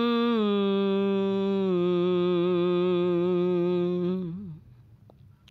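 A solo voice singing long, drawn-out notes that step down in pitch twice, then fading out a little after four seconds in.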